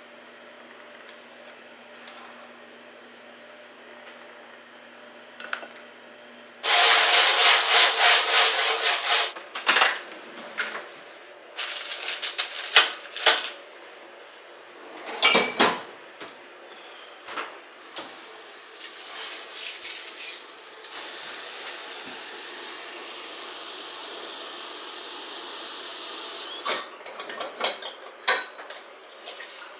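Kitchen clatter: metal pans, an oven rack and utensils knocking at irregular intervals. A loud rushing noise lasts about three seconds, and a steadier hiss comes later.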